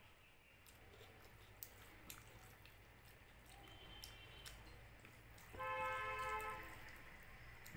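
Soft wet squishing and faint clicks of a hand mixing rice with dal on a plate, with chewing. Near the end a steady tone sounds for about a second, louder than the eating.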